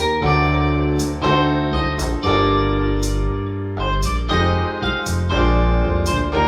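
Music played back through vintage SABA 1300 Professional hi-fi speakers: electric piano chords over a steady bass line, with a sharp cymbal-like hit about once a second.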